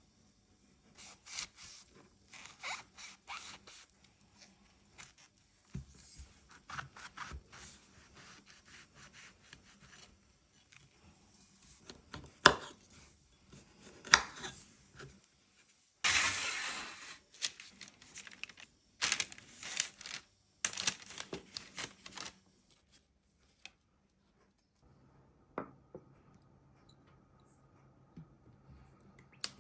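Food being prepared by hand on a kitchen board: a run of irregular scrapes, rubs and tearing sounds, with two sharp knocks about halfway through and a longer scrape just after.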